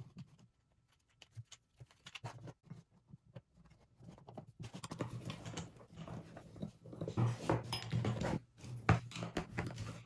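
Hand screwdriver driving screws into a plastic Meltric DSN30 receptacle assembly: a few light clicks of handling at first, then from about four and a half seconds a denser run of scraping and clicking as the screws are turned down snug.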